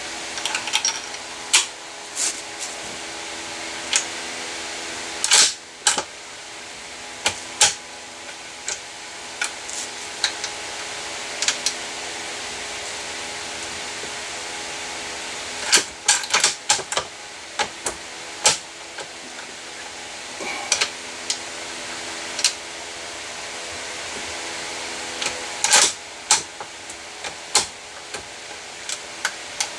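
The bolt of a Mossberg ATR 100 bolt-action rifle is being worked again and again, making irregular clusters of sharp metallic clicks and clacks as .243 Winchester rounds are fed, chambered and ejected. This is a function check that the freshly reassembled rifle loads and ejects correctly.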